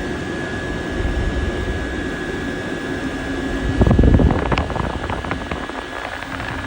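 Diesel heater running steadily: a constant blower and burner noise with a thin whine. About four seconds in comes a short louder rumble with a scatter of light clicks and knocks.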